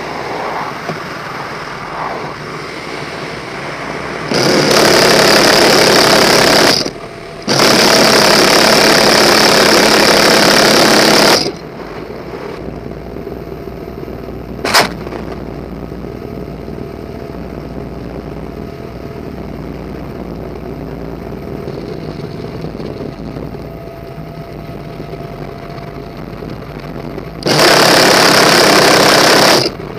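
Helicopter door-mounted M134 minigun firing three long bursts, each an unbroken buzz of several seconds: one about four seconds in, a longer one right after a brief pause, and one near the end. Between the bursts the helicopter's engine and rotor noise runs steadily, with one sharp click about halfway.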